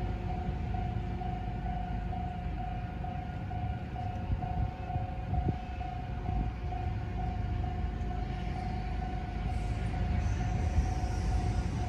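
Level-crossing-style warning bell ringing steadily at about two strokes a second, the signal that the crossing gates are closed for the bridge opening, over a continuous low rumble.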